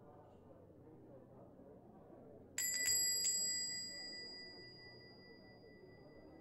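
A small shop-door bell rings about two and a half seconds in, struck three times in quick succession, then rings out and fades over a few seconds as the door opens on a customer entering. Beneath it runs a faint, steady background murmur.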